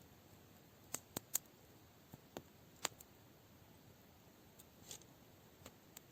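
Campfire crackling: sharp, irregular pops of burning wood. Several come close together about a second in, then scattered ones follow, over a faint steady background.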